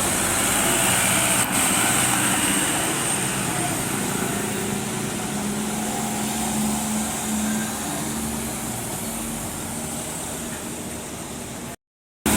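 Outdoor background noise with a motor vehicle engine running, a steady low hum strongest in the middle; the sound cuts out completely for a moment near the end.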